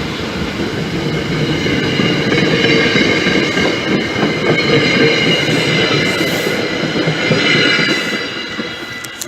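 MBTA commuter rail train running on the rails, a loud rumble with a steady high wheel squeal over it, which fades away over the last second or so.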